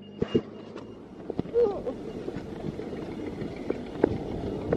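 Street background noise of passing car traffic, with a few sharp knocks and a brief faint voice about a second and a half in.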